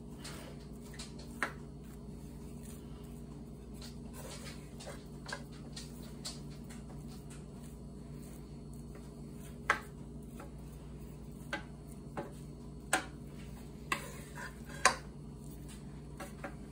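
Wooden spatula pushing and spreading crumbled cooked ground beef in a metal cake pan, with soft scraping and scattered sharp knocks of the spatula and skillet against the pans, most of them in the second half.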